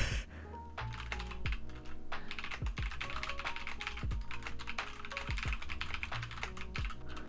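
Fast typing on a Logitech G Pro X mechanical keyboard: a quick, continuous run of key clacks, with soft lo-fi music underneath.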